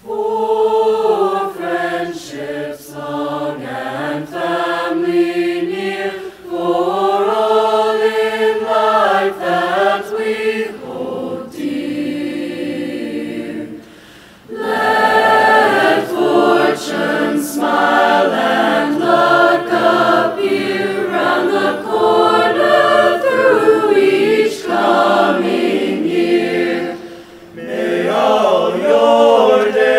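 High school choir singing in parts. The voices come in suddenly at the start, soften briefly about halfway through, then return at full strength.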